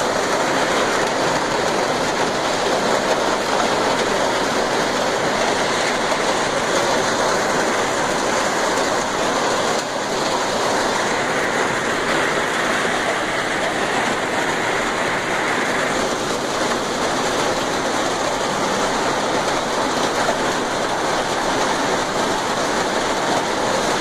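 Heavy downpour of rain with running water: a loud, steady, dense hiss that shifts slightly about ten seconds in.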